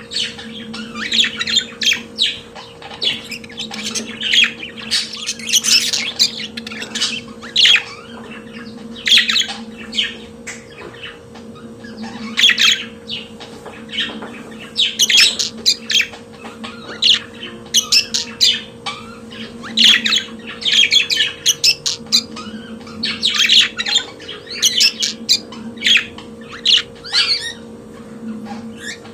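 Budgerigars warbling and chattering in fast, continuous runs of chirps, broken by short louder squawks. A steady low hum sounds underneath.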